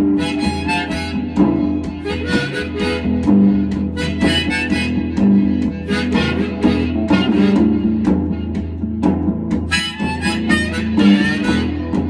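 Harmonica in a neck rack playing blues lines over a rhythmically strummed electric guitar, with no singing.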